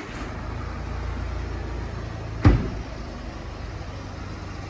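A car engine running with a steady low rumble, and a car door shutting with a single heavy thump about halfway through.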